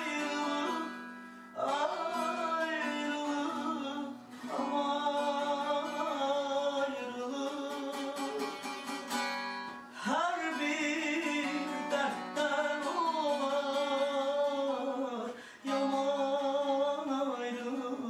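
A man singing in long phrases with wavering, bending pitch, to a saz (long-necked Azerbaijani lute) played alongside him.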